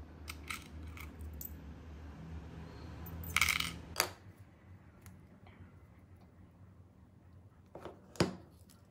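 Small metal battery terminals and a circuit board clicking and clinking as they are handled and set down on a work mat. There is a short scraping rustle a little over three seconds in, and two sharper knocks near the end.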